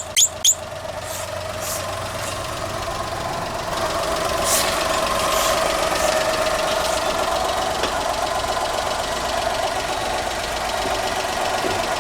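Car engine running steadily as the car creeps forward, its drone swelling over the first few seconds and then holding, with a few sharp clicks right at the start.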